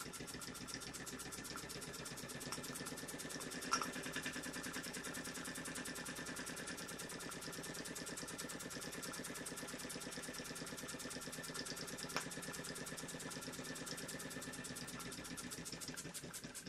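Small live-steam model traction engine's single brass cylinder running steadily, a fast, even chuffing of exhaust beats, with a couple of sharper ticks along the way.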